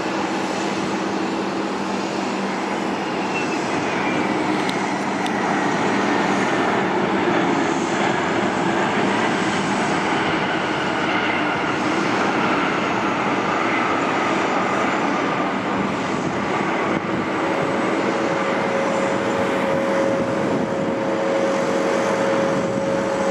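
Airbus A300F4-622R freighter's Pratt & Whitney PW4158 turbofans running loud and steady through the landing touchdown and rollout, with a whine that slowly falls in pitch as the jet slows on the runway.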